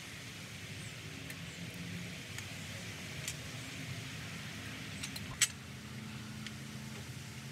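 Metal barbell and plates clinking as the bar is lifted: a few light clicks, then one sharp clank about five seconds in. A low steady hum runs underneath.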